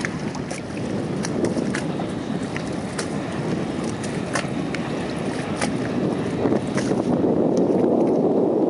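Axis A22 wakeboard boat running past at speed, its engine and wake a steady rushing noise that grows louder near the end as it comes closer, with scattered clicks of wind and water at the microphone.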